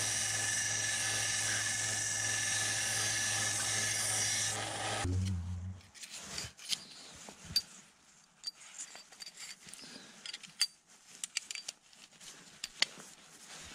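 Bench belt sander running while a tool-steel knife blade blank is held against the belt. It is switched off about five seconds in and winds down with a brief low rumble. Faint clicks and scrapes follow as the steel blade is fitted into its wooden handle and metal ferrule.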